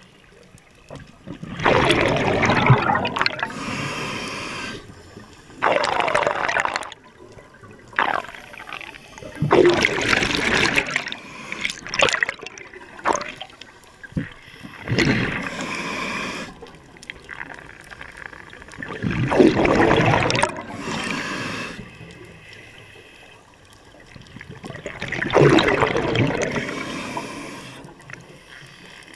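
Scuba diver breathing through a regulator underwater: a loud gurgling rush of exhaust bubbles about every four to five seconds, with quieter hissing in between.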